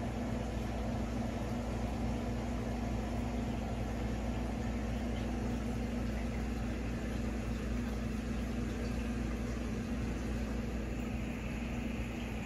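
Steady electrical hum of reef aquarium pumps with water circulating in the tank.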